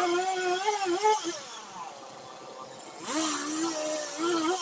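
Chainsaw engine running at high throttle with small dips in pitch, easing back to a quieter idle for about two seconds, then revving up again about three seconds in.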